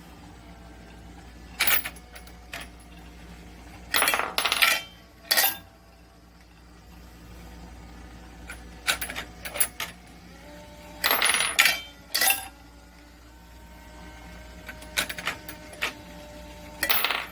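Brass cartridge cases clinking and ringing against each other and the machine as a DIY brass annealer cycles them. The clinks come in short clusters every few seconds, over a steady low hum.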